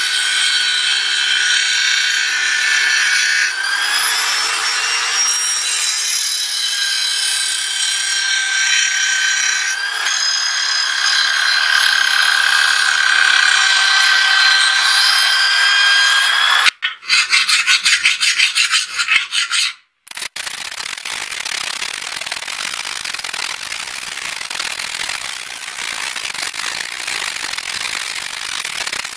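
A steel blade is ground on a bench grinder: a hissing grind with a high whine that wavers in pitch as the blade is pressed to the wheel. After about sixteen seconds this gives way to a short choppy stretch of rapid strokes and a brief gap, then a hand file rasping steadily along the steel blade.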